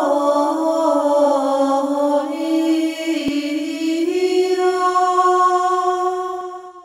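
A woman singing a slow, unaccompanied chant in long held notes, the pitch stepping slowly up and down. There is a single short click about three seconds in.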